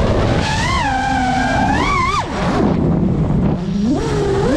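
FPV racing quadcopter's brushless motors whining. The pitch rises and falls with the throttle, drops sharply about two seconds in, then climbs steeply again near the end, over low wind rumble on the onboard GoPro's microphone.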